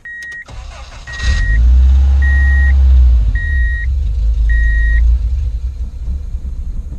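Subaru boxer engine cranking and catching about a second in on its first start after a manual transmission swap, running loudly for a few seconds, then fading away; the airbox is off, so the MAF sensor sees no air. A dashboard warning chime beeps about once a second for the first five seconds.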